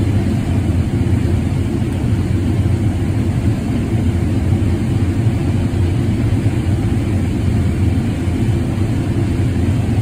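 John Deere combine running steadily while harvesting corn, heard from inside the cab as an even, low drone of engine and threshing machinery.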